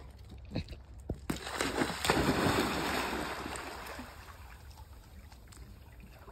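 A dog splashing into a swimming pool and paddling: a few short clicks, then a big splash of water about a second and a half in that slowly dies away into the slosh and lapping of the pool.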